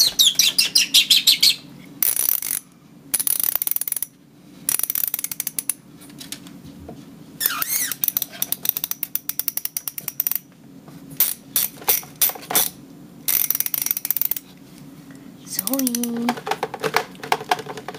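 Ratchet of a torque wrench being worked in repeated short bursts of rapid, even clicking, with gaps between bursts. A lovebird chirps briefly near the start.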